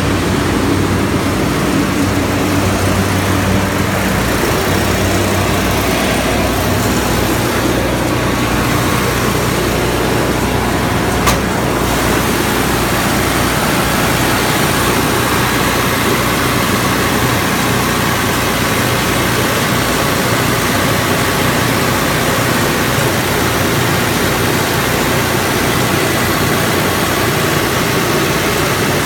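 Trielectron 20-ton aircraft ground air-conditioning unit running steadily with both compressors on, in cooling operation: a loud, even machine noise with a low steady hum. There is one sharp click about eleven seconds in.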